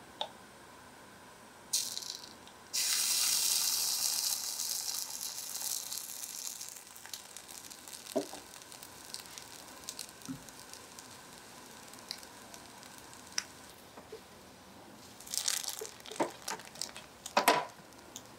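Pancake batter sizzling in a hot oiled miniature cast-iron skillet. It starts with a sudden loud hiss about three seconds in, then fades to a faint sizzle with scattered small pops. Near the end come a few quick scrapes and taps as a small spatula works the pancake.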